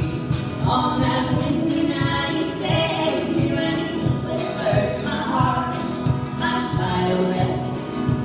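A band's song with several voices singing together in harmony over instrumental backing with a steady beat.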